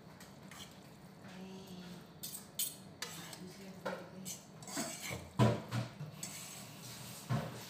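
Metal fork clinking and scraping against a frying pan as noodles are tossed and stirred: a run of irregular sharp clinks, the loudest a little past five seconds in.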